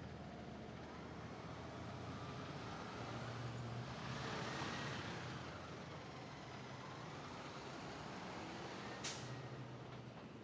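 Peterbilt 567 dump truck's diesel engine running at low speed as the truck and its pup trailer pull past, loudest about halfway through and fading as it moves off. A brief, sharp air-brake hiss comes near the end.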